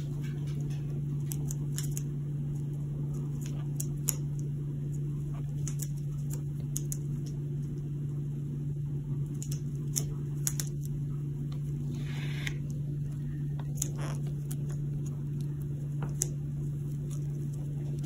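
Steady low hum throughout, with scattered faint clicks and taps from a budgerigar's beak as it pecks and plays with an elastic band on a cloth-covered table.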